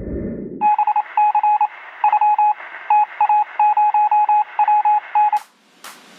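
A low rumble, then a string of electronic beeps at one steady pitch, short and long in uneven groups, over a hiss like radio static; the beeping stops suddenly about five seconds in, followed by a few clicks.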